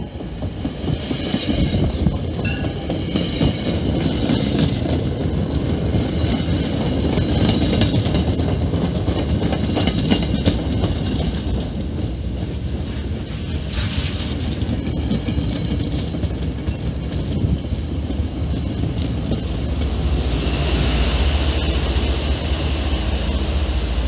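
MBTA commuter train rolling slowly past, its coaches' wheels clacking over the rails, with a faint high squeal now and then. Near the end the HSP46 diesel locomotive pushing at the rear passes, adding a deep engine rumble.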